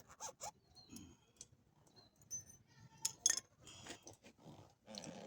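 Scattered light metallic clinks and knocks, with the loudest knock a little after three seconds in.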